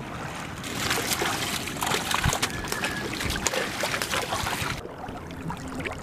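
Water splashing from live fish thrashing in a fishing net drawn up against a wooden boat, a dense run of quick splashes from about a second in that dies down near the end.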